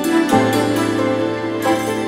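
Slow, soft background music with plucked or keyboard-like notes changing every half second or so.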